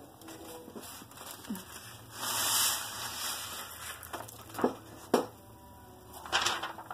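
Paper rustling and crinkling as a sheet holding loose potato chips is handled and set down, then a few sharp taps.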